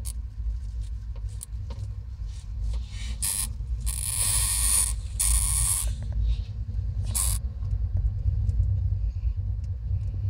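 Dry hay bedding rustling and crackling in several short bursts through the middle, over a steady low rumble of microphone handling noise.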